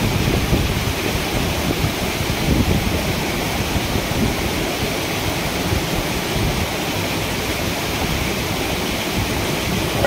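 Steady rush of a small mountain waterfall and its stream, an even noise with no break.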